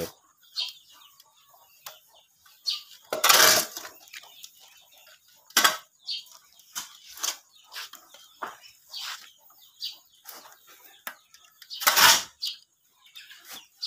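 Metal shovel scooping and tossing composting sawdust, the blade scraping a cement floor in irregular strokes while a week-old sawdust compost pile is turned, with louder scoops about three, five and twelve seconds in.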